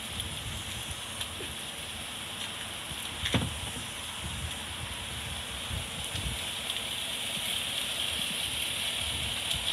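Steady outdoor noise with a high hiss and a low rumble that comes and goes, broken by a single sharp thump about three and a half seconds in.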